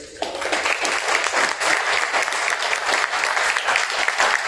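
An audience applauding, the clapping swelling up just after the start and then going on steadily.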